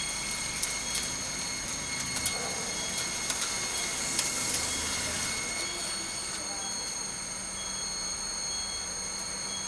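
CNC high-speed plate drilling machine running: a steady high-pitched whine made of several constant tones, with irregular sharp clicks and crackles through the first half. From about six seconds in the clicks stop and it settles into a smoother steady hum.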